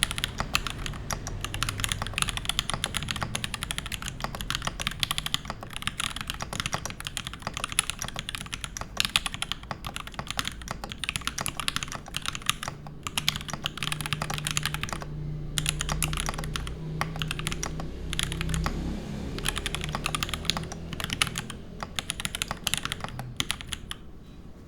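Fast typing on a Cannonkeys Sagittarius gasket-mount mechanical keyboard with lubed C3 Tangerine linear switches, a brass plate and GMK keycaps: a dense, steady run of keystrokes broken by a few short pauses.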